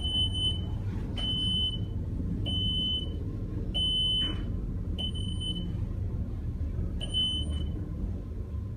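Short high electronic beeps repeating about once a second inside a moving traction elevator car, the floor-passing tone sounding as the car goes by each floor, over the low rumble of the car's travel. The beeps stop near the end as the car comes to its floor.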